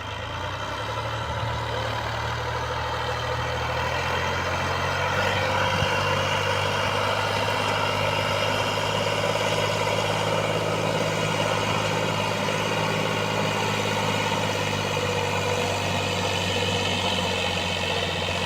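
Combine harvester's diesel engine running steadily with machinery whine over it, its pitch stepping up about four seconds in and then holding.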